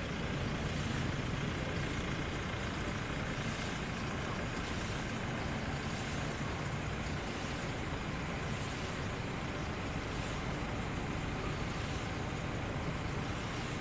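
Steady low rumble of road traffic, with no ball strikes standing out.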